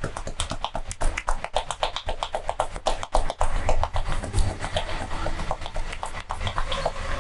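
Rapid percussive massage strokes: hands tapping and slapping on the body in a fast, uneven rhythm of about seven or eight strikes a second.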